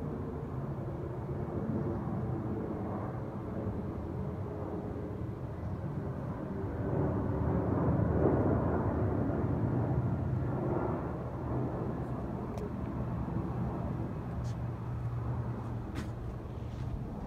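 Twin-engine jet airliner passing overhead, a low engine rumble that swells to its loudest about eight seconds in and then slowly fades. A few faint clicks near the end.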